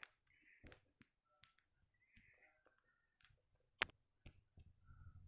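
Near silence broken by scattered faint clicks, with one sharp, louder click just before four seconds in.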